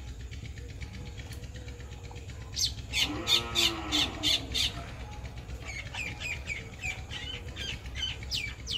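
Birds calling: a quick run of sharp squawks, about four a second, partway in, overlapped by a lower drawn-out animal call. Softer high chirps follow near the end.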